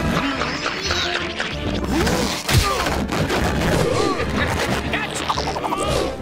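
Cartoon fight sound effects over action music: a rapid run of whacks and crashes as blows land.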